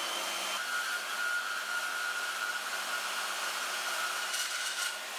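Metal-cutting band saw running and cutting through steel angle iron: a steady machine hiss, with a steady whine coming in about a second in as the blade works through the steel.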